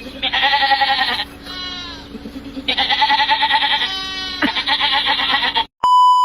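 Goat-like bleating: a series of long wavering bleats with short rising calls between them. Near the end, a loud steady electronic beep cuts in.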